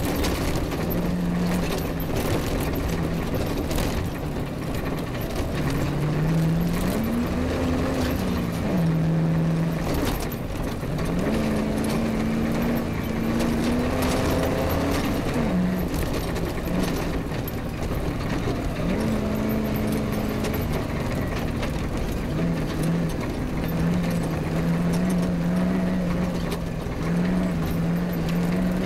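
Off-road rally vehicle's engine running under load, its pitch climbing and dropping back several times with throttle and gear changes, under rough driving noise and a few sharp knocks.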